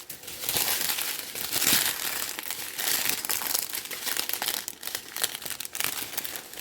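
Small plastic bags of diamond painting drills crinkling as they are handled, a continuous rustle with many small clicks.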